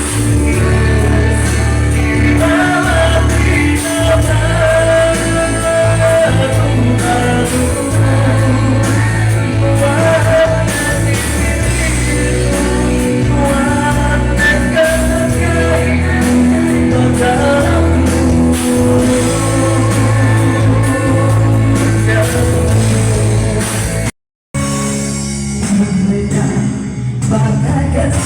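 Band music with a singer's voice over a steady bass line, played at a sound check. The sound cuts out completely for a moment about three-quarters of the way through, then resumes.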